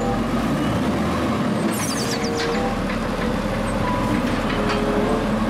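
Side-loading garbage truck running steadily as its automated arm lifts and tips a wheeled trash cart, with a few brief high chirps about two seconds in.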